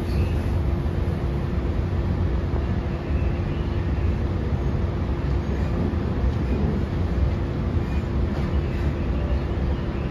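Interior running noise of an NSW TrainLink Oscar H set electric train in motion: a steady low rumble with a constant hum over it and a few faint ticks.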